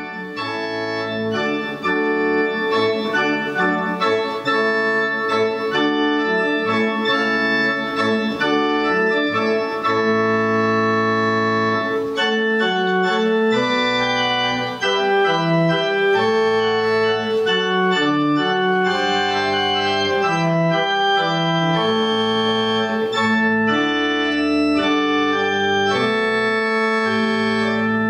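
Electronic organ playing a slow piece in sustained chords over a pedal bass line. It swells in over the first two seconds, then holds full and steady.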